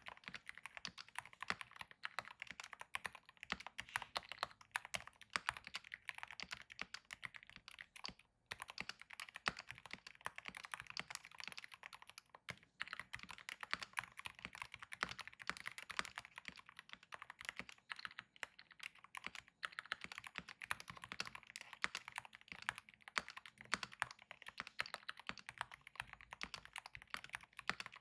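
Typing on a Keychron R5 Retro mechanical keyboard with factory-lubed Keychron Silent Red linear switches and double-shot PBT keycaps: a continuous soft patter of dampened keystrokes, with brief pauses twice early on.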